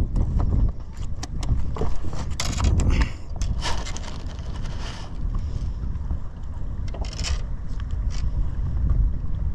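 Wind rumbling on the microphone aboard a small boat, with scattered knocks and a few short bursts of hiss.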